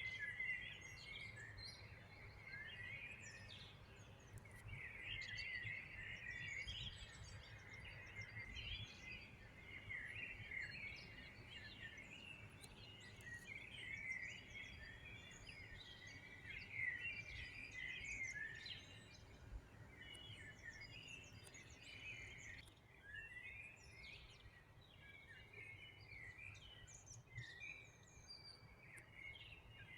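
Many small birds chirping and singing at once in a dense, continuous chorus of short, quick notes, over a faint low rumble.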